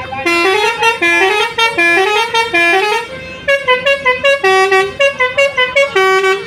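Bus's basuri 'telolet' multi-tone musical horn playing a melody: a short rising phrase sounded four times over, then a quicker run of short, stepped notes.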